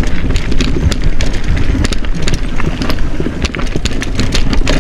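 Mountain bike rattling down a rough trail: many sharp, irregular knocks and clatters as the tyres, chain and frame hit roots and rocks, over a steady low rumble.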